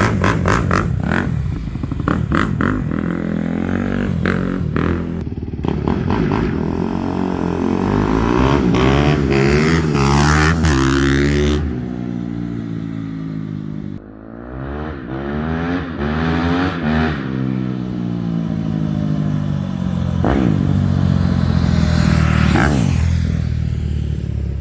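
Honda CRF250R dirt bike's single-cylinder four-stroke engine through a Yoshimura titanium exhaust, revving hard through the gears, its pitch climbing and falling again and again. Loudness drops briefly about fourteen seconds in before it builds up again.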